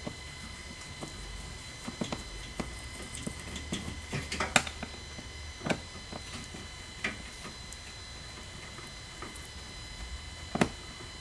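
Irregular clicks and small metal taps of a Phillips screwdriver working out the screws that hold a golf cart's seat back. The sharpest click is about four and a half seconds in, with another near the end.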